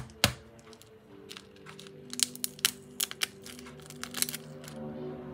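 Eggs being cracked open into a stainless steel saucepan: a series of sharp taps and cracks of shell. Background music comes in about a second in.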